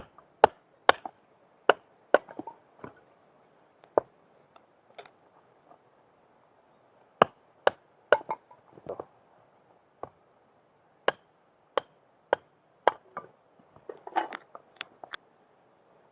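Firewood being chopped for a campfire: a run of sharp, irregular wooden knocks with a pause midway and a quicker flurry near the end.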